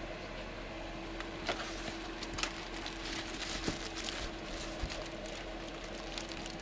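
Clear plastic bag crinkling and rustling, with scattered light knocks, as a boxed LED grow light wrapped in it is handled and lifted out. A steady low hum runs underneath.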